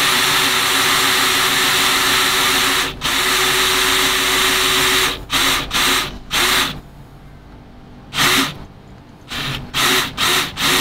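Cordless drill with a twist bit boring upward into a roof soffit, with slight pressure on it. It runs steadily for about five seconds with a brief dip near the middle of that run, then comes in a series of short bursts with pauses between.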